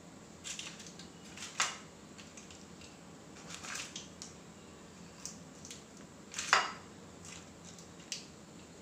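Light clinks, taps and scrapes of a knife and cake pieces against a glass baking dish and a plastic plate as cut cake is served, with two sharper knocks, about a second and a half in and again about two-thirds of the way through.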